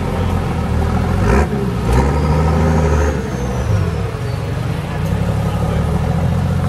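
Bobcat skid-steer loader's diesel engine running steadily, revving up briefly about two seconds in. Two sharp knocks come about a second and a half and two seconds in.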